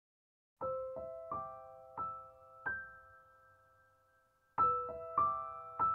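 Background music of slow, gentle piano notes, each struck note ringing and fading. It starts from silence about half a second in, with a lull in the middle before a second phrase begins.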